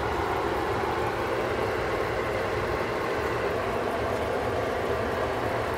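Steady stovetop cooking noise: pots of tomato sauce with meatballs bubbling and sizzling on the burners, over a low hum.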